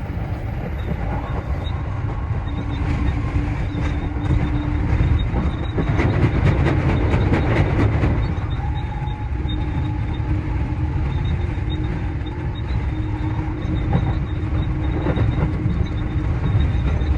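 JR Central 315 series electric train running, heard from on board: a steady rumble with faint humming tones, and a quick run of clicks from the wheels between about six and eight seconds in.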